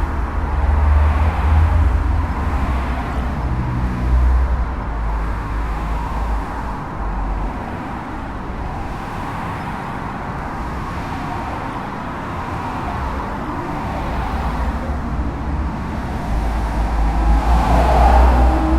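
Street traffic: a steady wash of tyre and road noise from cars passing, over a low engine rumble. The rumble eases off in the middle, then a louder vehicle passes close by near the end.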